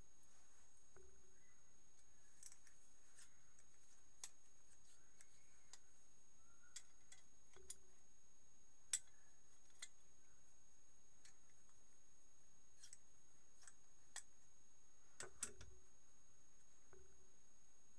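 Old steel hand clippers being worked and handled: scattered faint metallic clicks and snips as the blades and pivot open and close. The sharpest click comes about nine seconds in and a close pair near fifteen seconds.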